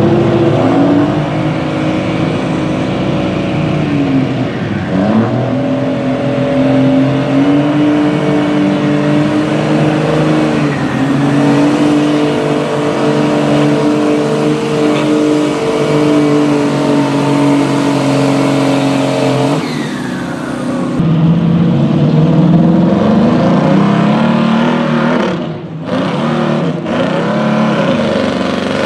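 Diesel pickup truck engines running hard under load while pulling a weight-transfer sled: a steady, loud engine drone whose pitch sags and recovers now and then. About two-thirds of the way through, the sound cuts to a second pickup's engine revving up and easing off.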